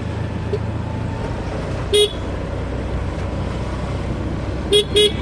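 Short car horn toots: one about two seconds in, then two quick ones near the end. Under them runs the steady low rumble of a slow-moving vehicle and road noise.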